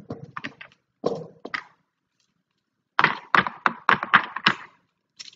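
Irregular knocking and tapping on a hard surface, made on purpose as noise samples for a sound classifier: a few quick strikes at the start, another short cluster about a second in, then a denser, louder run of rapid knocks about three seconds in.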